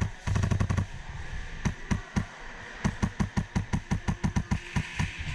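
Airsoft rifle firing: a quick volley at the start, a few single shots around two seconds in, then a steady string of about seven shots a second.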